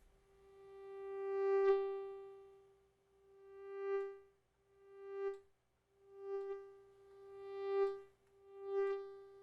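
Synthesized mosquito whine made in Logic Pro X: a thin, steady-pitched buzz that swells up and fades away six times, like an insect flying close and off again, shaped by hand-drawn volume automation. Its pitch stays fixed because the pitch bend has not yet been added.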